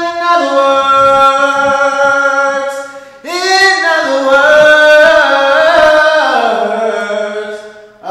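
Singing voice holding long, wordless notes. The sound fades and comes back in about three seconds in on a new wavering note, then slides down in pitch and fades near the end.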